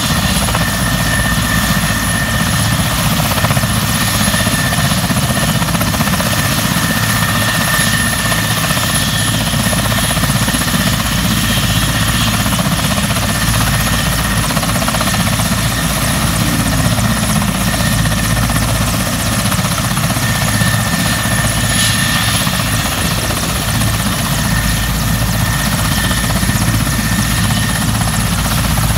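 Mil Mi-17 helicopter running on the ground with its main rotor turning, its twin turboshaft engines holding a steady high whine over dense low rotor and engine noise, warming up before take-off.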